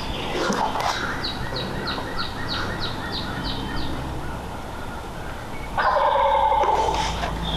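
A wild turkey gobbling from the roost: one loud rattling gobble about six seconds in. Earlier, a songbird gives a quick series of about nine short high notes.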